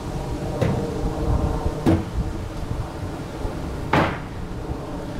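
Long wooden boards knocking against a pickup truck's bed as they are loaded and slid in: three separate knocks, the loudest about four seconds in.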